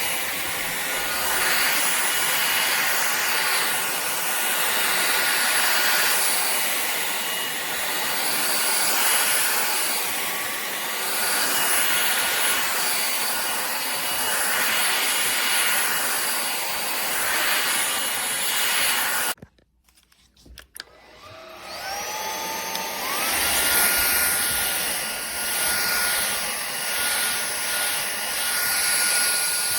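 Powerffy N10 cordless stick vacuum running with a steady high whine. About two-thirds of the way through it cuts out to near silence, then the motor spins back up with a rising whine and settles at its running pitch.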